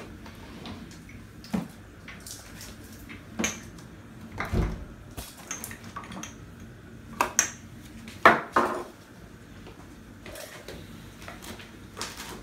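Dishes, pans and cooking utensils being handled: a scattering of separate clinks and knocks, with a duller thump about a third of the way through and the sharpest clatters about two-thirds of the way through.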